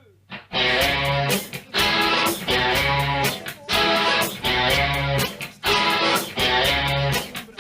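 Music led by strummed electric guitar, repeating short chord phrases about once a second.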